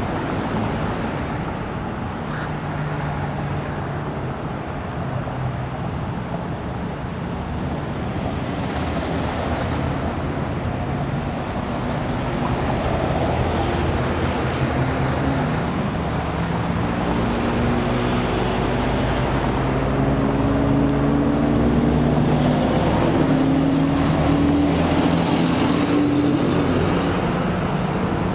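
Highway traffic noise: a steady rush of road noise, joined in the second half by the hum of a running engine whose pitch rises slowly and which grows louder before easing off near the end.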